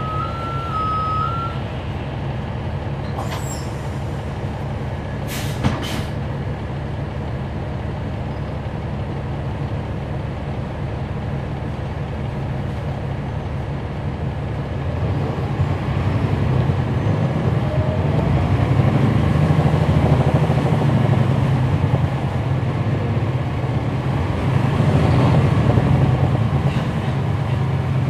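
Inside a 2011 NABI 416.15 transit bus with a Cummins ISL9 diesel engine and a ZF EcoLife six-speed automatic transmission. A two-tone beeping signal sounds at the start, and short sharp air-release sounds come a few seconds in. From about halfway the engine pulls away louder with a rising whine, eases, and rises again near the end.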